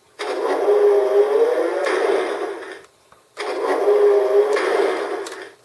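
2019 Hess toy tow truck's lift-gate sound effect played through the toy's small speaker: a whirring, motor-like hum with a wavering tone, heard twice, each a bit over two seconds long, as the gate is raised and lowered.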